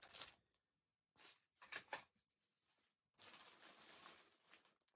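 Faint rustling and handling of packaged diamond painting kits, in a few short stretches with near silence between them.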